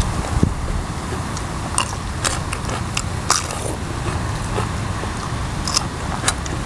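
Close-up eating sounds: chewing and crunching with irregular crisp clicks and mouth noises as curry and raw green vegetables are eaten, over a steady low rumble.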